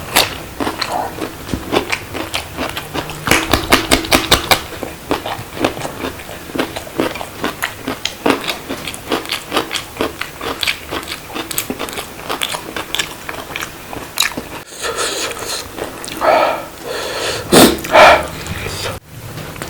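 Close-miked eating: a person chewing and crunching food in quick, irregular clicks. Near the end come a few louder, longer mouth sounds.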